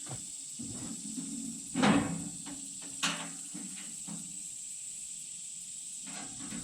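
Two knocks over a steady high hiss: a louder thump about two seconds in and a sharp click about a second later, with a few small taps between them.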